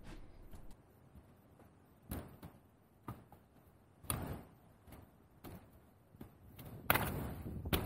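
A hiker's footsteps and trekking-pole taps on a steep grassy, rocky slope: a few scattered steps at first, then louder and closer near the end as the walker passes by.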